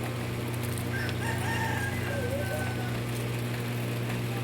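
A rooster crowing once, one call of about two seconds starting about a second in, over a steady low hum.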